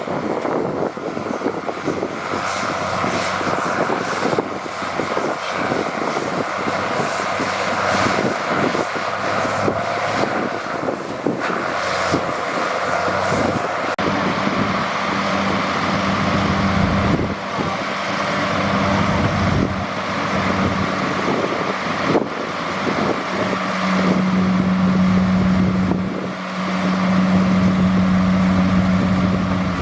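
Diesel engine of heavy earthmoving machinery running under load, with scattered clanks and knocks. About halfway through a steady low engine note comes in, and it is loudest near the end.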